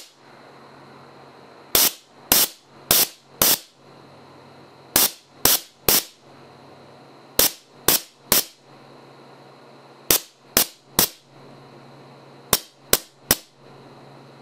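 Air cannon's 24 V solenoid valve firing short, sharp blasts of 125 psi compressed air in quick groups of three or four, about two a second, with pauses between groups. The amount of air released per blast changes with the valve's pulse width setting.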